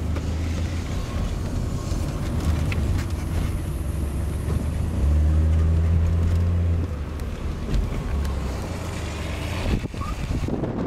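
Car engine and road noise heard from inside the cabin of a moving car: a steady low drone that grows louder for about two seconds midway through. Near the end there is a short knock.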